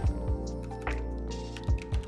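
Background music with a steady beat: low drum hits under held synth-like chords.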